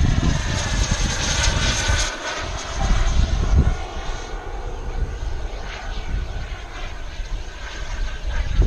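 Turbine engine of an RC J-10 model jet whining as it flies past overhead. The tone shifts and sweeps as it passes, loudest in the first two seconds and then fading, over an uneven low rumble.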